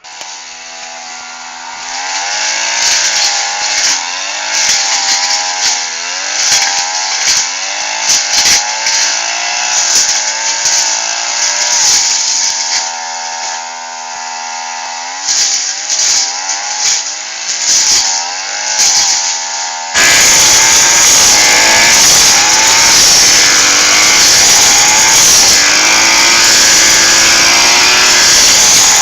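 Lawn mower's small engine running and being revved up and down over and over. About two-thirds of the way through it abruptly becomes louder and harsher, running steadily.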